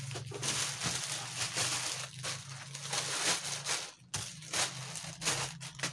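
Plastic packaging crinkling and rustling as a parcel is unwrapped by hand, with a brief lull about four seconds in.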